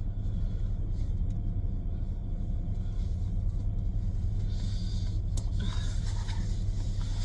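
Steady low rumble of a car idling, heard from inside the cabin, with some faint rustling about five seconds in.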